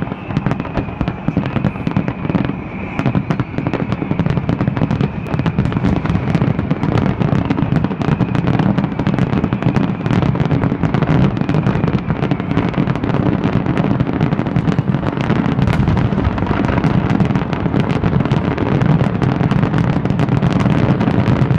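Fireworks display: a dense, continuous barrage of bangs and crackling over a steady rumble, with shells going off several times a second.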